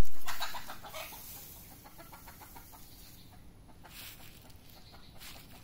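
A hen clucking: a quick run of short clucks, loud at first and fading over the first two seconds or so. A few brief rustles follow later on.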